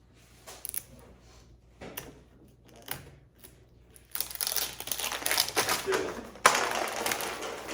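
Plastic Mini Brands toy capsule being handled and unwrapped: a few scattered plastic clicks, then several seconds of crackling, crinkling wrapper noise, with a sharp snap a little before the end.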